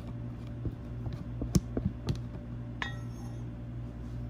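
Silicone spatula scraping oyster sauce out of a small glass bowl, with a few light knocks and clinks against the glass, the loudest about one and a half seconds in. Near three seconds in there is one ringing glass clink.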